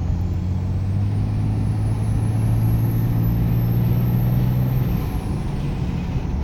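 Dodge Ram 2500's 5.9 Cummins inline-six turbodiesel at full throttle: the turbocharger's whistle climbs steadily in pitch over the engine note as the turbo spools. About five seconds in, the whistle and the engine note both drop away.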